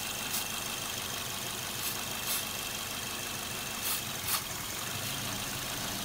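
Car engine idling while short bursts of aerosol spray hiss several times around the fuel injector bases. The idle changes as the spray is drawn in through a vacuum leak at a failed injector seal.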